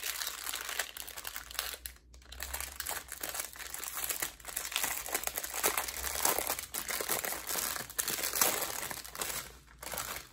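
Clear plastic bag crinkling steadily as hands turn it over and pull it open, briefly stopping about two seconds in and again near the end.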